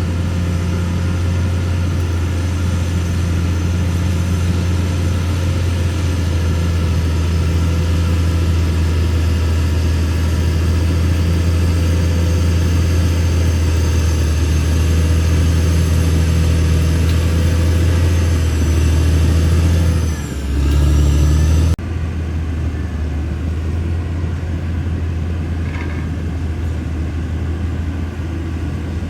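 Caterpillar D6R XL bulldozer's diesel engine running steadily with a low drone. About twenty seconds in, the sound dips and the engine note briefly changes, then it cuts abruptly to a slightly quieter engine drone.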